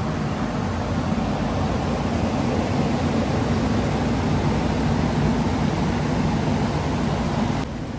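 Steady rushing machine noise in a hub dyno bay, with a low drone underneath from the MK3 Supra's engine. The higher rush cuts off suddenly near the end, leaving only the low drone.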